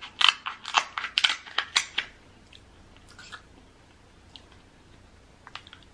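Kitchen scissors snipping through a king crab leg's hard shell: a quick run of crisp crunching snips for about two seconds, then a few faint clicks.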